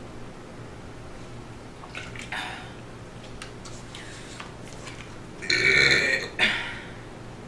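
A woman burps loudly. One long burp lasts nearly a second, about five and a half seconds in, and a short second burp follows straight after it.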